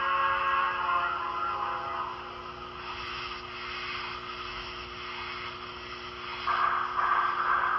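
N-scale model steam locomotives running a passenger train on the track, with a steady hum throughout. A high whistle chord from the locomotives' sound decoders fades out in the first two seconds, and a louder hiss joins about six and a half seconds in.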